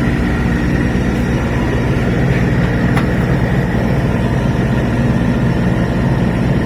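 Mini excavator's Kubota diesel engine idling steadily.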